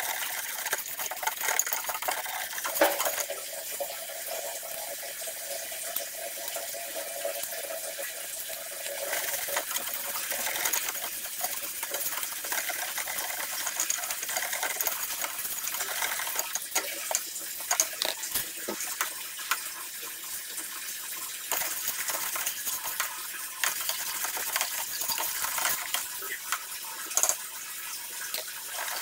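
Wire whisk stirring thick, cooking chocolate syrup in a stainless steel wok, the tines clicking and scraping lightly against the metal many times a second, over a wet, sloshing sound from the syrup.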